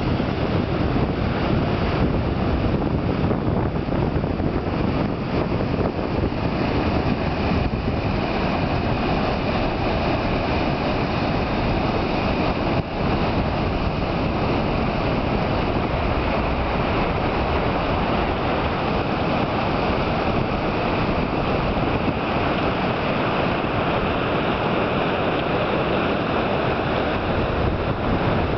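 Flood-swollen river rushing out through its mouth into breaking surf: a steady, loud wash of churning water, with wind buffeting the microphone.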